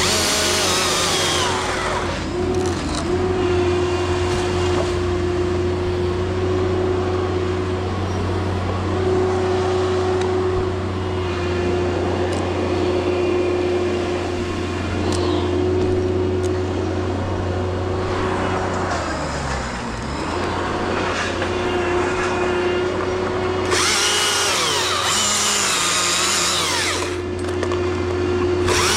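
Husqvarna chainsaw running at high throttle while cutting oak. The engine holds a steady high pitch, drops briefly and picks back up about two-thirds of the way through, and the cutting noise grows louder at the start and again near the end.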